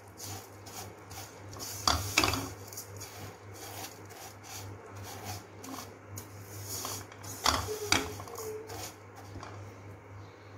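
Silicone spatula stirring and turning dry vermicelli as it roasts in a little ghee in a nonstick wok: a repeated dry scraping and rustling of the strands against the pan. Two scrapes, about two and seven and a half seconds in, are louder than the rest.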